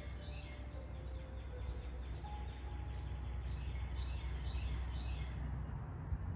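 Birds chirping over a steady low outdoor rumble, with a few faint held notes stepping down in pitch in the first two seconds.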